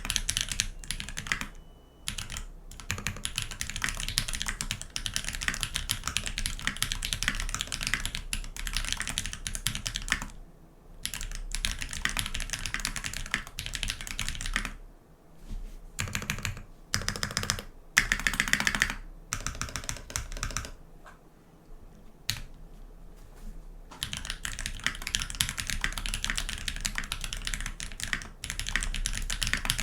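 Typing on a TX65 V2 mechanical keyboard with lubed Holypanda tactile switches, a brass plate and GMK keycaps: fast, continuous keystrokes. There are brief pauses about 10 and 15 seconds in, and slower, sparser strokes between about 20 and 24 seconds.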